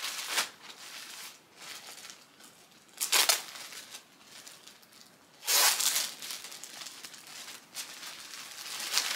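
Clear plastic garment packaging bag crinkling and rustling in several short bursts as a dress is pulled out of it.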